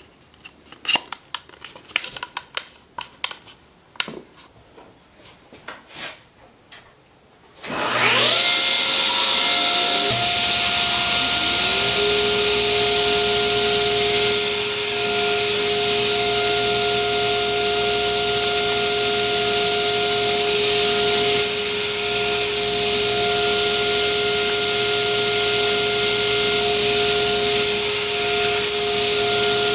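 Light knocks and clicks of wood being handled. About eight seconds in, a table saw is switched on: its motor spins up with a rising whine and then runs steadily. A second steady tone rises and joins it a few seconds later.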